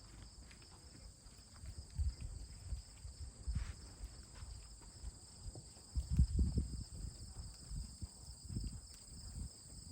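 Steady high-pitched insect chirring, with scattered low thuds; the loudest cluster of thuds comes about six to seven seconds in.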